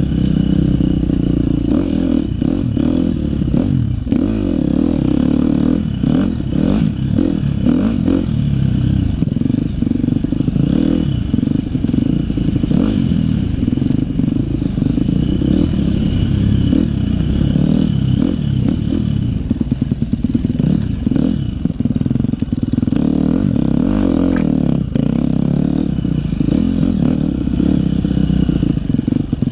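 KTM 250 XC-F single-cylinder four-stroke dirt bike engine running hard, its pitch rising and falling with the throttle, with frequent clattering knocks from the bike.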